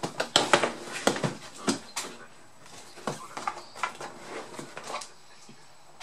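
Cardboard laptop box being opened and handled: a run of short knocks, taps and scrapes of cardboard against cardboard and the bench, busiest in the first two seconds, sparser after, and fading about five seconds in.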